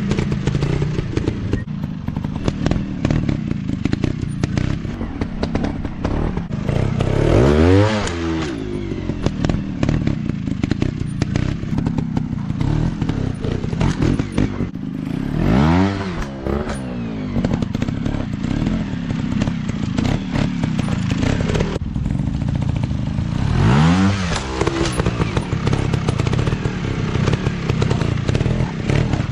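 Dirt bike engines running, with three short throttle revs rising and falling in pitch, about eight seconds apart.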